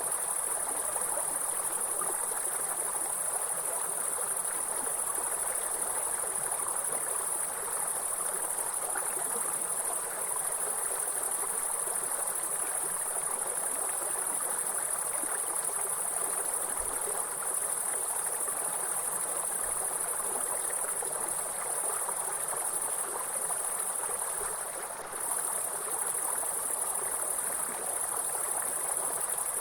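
A steady, high-pitched chorus of insects over the rushing of a flowing stream. The insect sound falters briefly once, a few seconds before the end.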